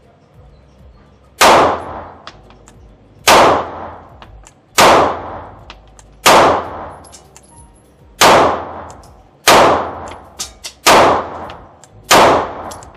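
Canik METE MC9 9mm pistol fired in slow aimed fire: eight shots about one and a half seconds apart, each followed by a ringing echo. There are a few fainter cracks between the later shots.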